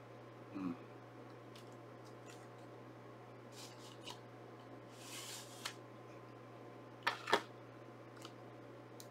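Cardboard slipcover sliding off a plastic Blu-ray case: a brief scraping rustle about halfway through, then two quick plastic knocks as the case is handled, with small taps here and there over a low steady hum.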